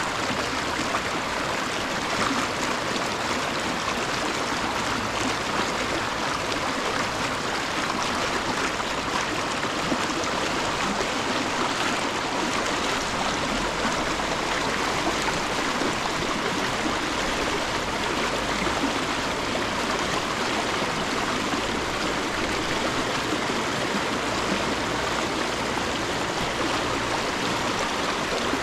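Flowing stream, a steady, unbroken rush of water.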